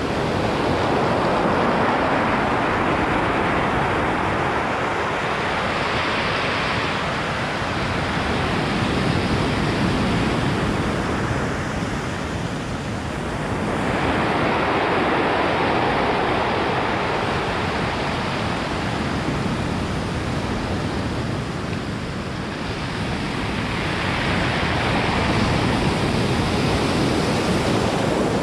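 Ocean surf breaking and washing up a pebble beach, rising and falling in long surges about every ten seconds.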